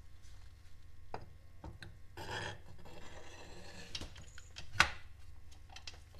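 Small metal parts being handled and fitted by hand on a four-speed transmission's front cover: scattered light clicks, a short scrape about two seconds in, and one sharp clack near the end as the cover and its bolts are set in place over the input shaft.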